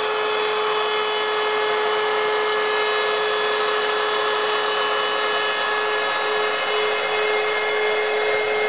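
Handheld wood router running at steady speed with a constant high whine, its bit rounding off the edge of an MDF board to a small radius.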